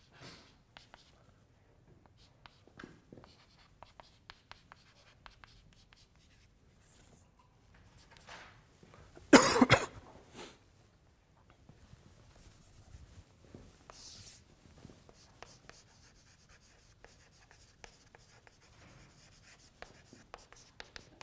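Chalk writing on a blackboard: short taps and scratchy strokes with pauses between them. About halfway through comes one loud cough.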